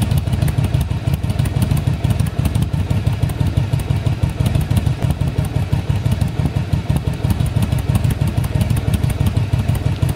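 Yamaha Drag Star XVS 1100 air-cooled V-twin idling steadily through its staggered twin chrome exhaust pipes, a low, even, pulsing beat with no revving.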